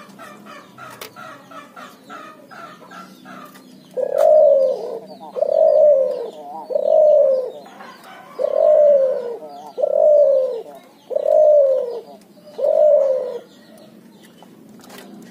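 A hybrid dove, a cross of a ringneck (puter) dove and a spotted (tekukur) dove, cooing: seven loud coos of about a second each, starting about four seconds in, each arching and then falling in pitch. Faint chirping of small birds fills the first few seconds.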